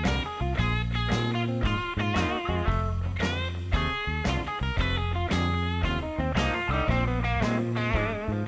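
Background rock music led by an electric guitar, playing bending notes over bass and a steady beat.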